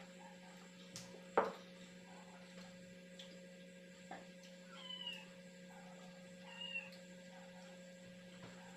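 A cat meows twice, about five and six and a half seconds in, each call a short rising-then-falling cry. A single sharp knock comes about a second and a half in and is the loudest sound. A steady electrical hum runs underneath.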